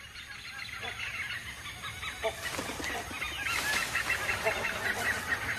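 Birds calling in tropical forest: repeated short honking calls over a dense chorus of chirps that grows busier about two seconds in.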